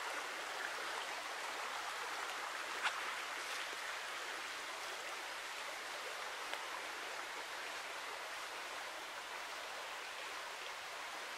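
Steady rushing of a river flowing past, with a single sharp click about three seconds in.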